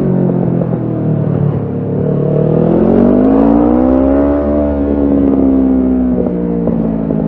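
Kawasaki Ninja 650's parallel-twin engine through a Shark SRC-4 full exhaust system, rising in revs for a couple of seconds, holding, then dropping back near the end, with a few sharp crackles as the revs fall.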